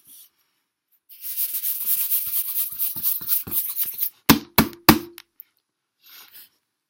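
A hand rubbing and scraping across a surface close to the microphone for about three seconds, with small crackles, then three sharp knocks in quick succession.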